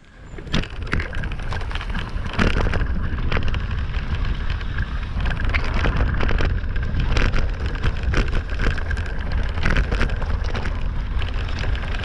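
Electric mountain bike riding a dirt forest track: tyres rolling over gravel and dry leaves with frequent rattling knocks, under a heavy rumble of wind on the microphone. The noise starts about half a second in and then runs steadily.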